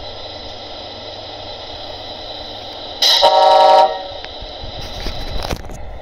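Sound unit of an RC Scania 770 S truck model sounding an air-horn blast through its small speaker for about a second, about three seconds in, over a steady low background. A few sharp clicks follow near the end.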